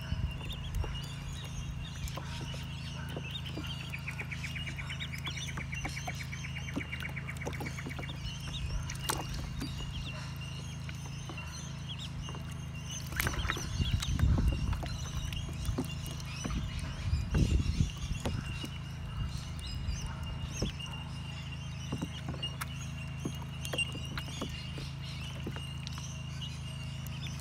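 A group of ducklings peeping continuously, with a fast run of rapid peeps a few seconds in. There are two louder low, noisy stretches around the middle.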